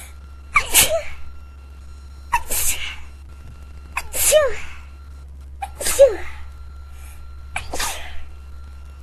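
A person in a sneezing fit: five sneezes in a row, one about every second and a half to two seconds, each a sharp burst with a short falling cry.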